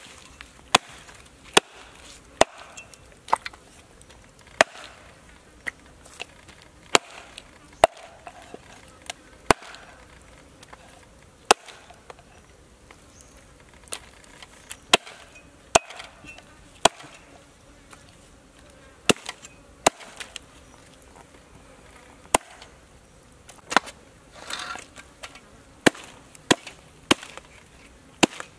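Meat cleaver chopping a small crocodile into pieces on a wooden chopping board: a series of single sharp chops about a second apart, with a few short pauses between runs.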